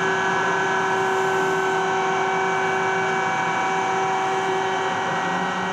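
MacGregor ship's deck crane machinery running, heard inside the operator's cab: an extremely loud steady drone with several steady whining tones over it.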